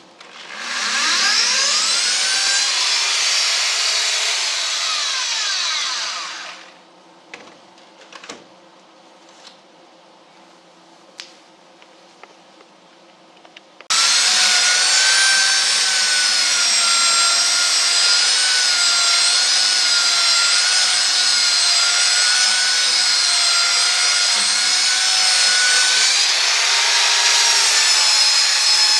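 Handheld electric power tool easing down the edge of the wagon's wooden boards. It spins up and runs for about six seconds, stops with a few light knocks, then starts again suddenly about halfway through and runs steadily with a high whine to the end.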